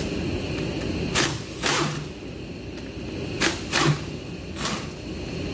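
Tools working the pulley-retaining bolts on a Nissan CVT transmission: five short scraping strokes, in two pairs and then one more, over a steady background whir.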